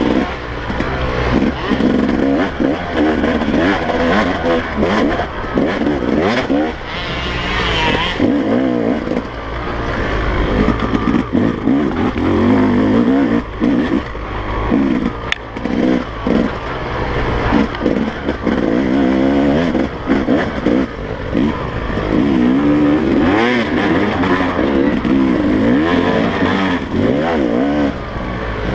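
Two-stroke single-cylinder engine of a 2017 Yamaha YZ250 dirt bike, revving up and down over and over as it is ridden hard along a rough single-track. Scattered knocks and rattles come from the bike over the bumps.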